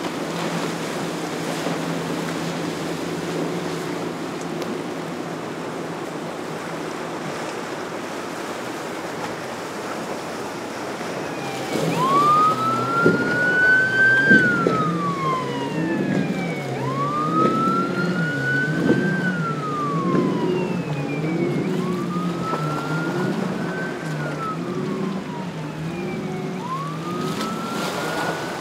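Wind and surf noise with a steady low hum, then, about twelve seconds in, an emergency siren starts wailing. Its pitch climbs quickly and sinks slowly, about every five seconds, over a lower warbling tone.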